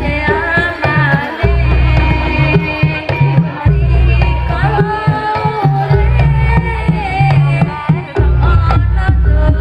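Jaranan accompaniment music played live: hand drums over a deep bass that comes in blocks of a second or two, with a wavering, sliding melody line above.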